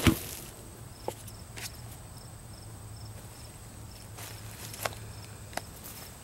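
Footsteps and the brushing and rustling of coveralls on sawdust-covered ground, with a loud thump right at the start. Faint, regular insect chirping carries on underneath.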